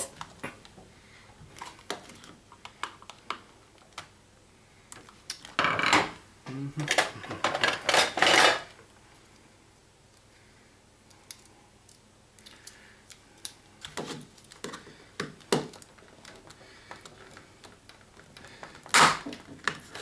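A flathead screwdriver prying at the seam of a plastic remote control case: scattered clicks and scrapes, with a louder stretch of scraping and cracking plastic about six to eight seconds in. Later come single sharp knocks and clatter as the remotes and tools are handled on the wooden table.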